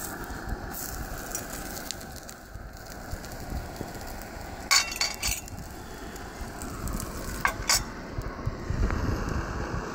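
Omelet sizzling in a cast iron skillet over a lit Svea 123 white-gas stove, with a steady hiss throughout. A metal utensil clinks and scrapes against the skillet about five seconds in and again about two and a half seconds later as the omelet is slid out onto a plate.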